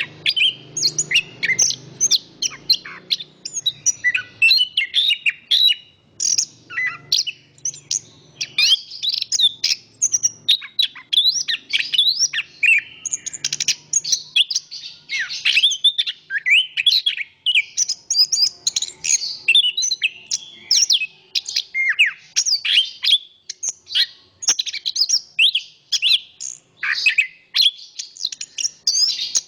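Chestnut-capped thrush (anis kembang) singing a fast, varied, unbroken song of rapid sweeping notes. Under the song, a low wind rumble is heard for roughly the first ten seconds.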